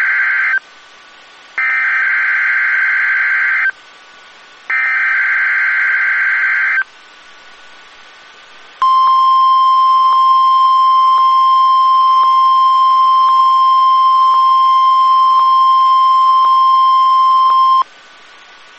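NOAA Weather Radio SAME alert header: three bursts of digital data tones, each about two seconds long with a second's gap, the first already under way. It is followed by the 1050 Hz warning alarm tone, a single steady tone held about nine seconds that cuts off suddenly, sounded for the weekly test of the warning system.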